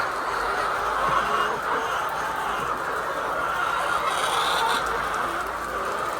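A flock of laying hens clucking and calling all at once, a steady din of many overlapping voices, with a brief higher-pitched sound about four seconds in.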